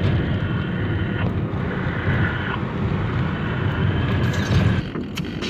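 Steady road and engine rumble of a moving car heard from inside the cabin, with some wind noise on the microphone. Near the end it drops away and music with a beat comes in.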